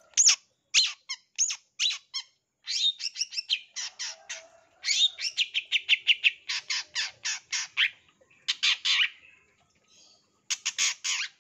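Caged long-tailed shrike (cendet) in full song: rapid runs of short, harsh, scratchy notes, up to about ten a second, broken by brief pauses and a gap of about a second near the end before a final burst.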